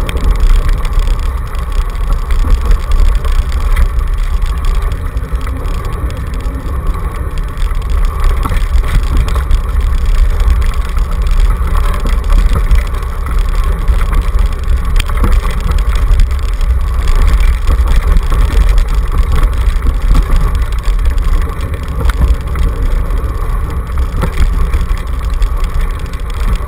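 Dog scooter rolling fast over a rough dirt trail behind two huskies, heard through a camera on its handlebar: a loud, steady rumble of wheels and wind on the microphone, with a constant mid-pitched hum and scattered small rattles.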